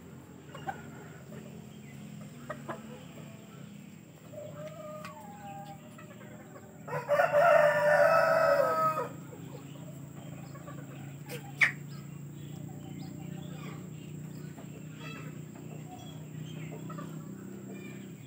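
A bantam rooster crows once, a single crow of about two seconds beginning about seven seconds in. Softer short calls come before and after it.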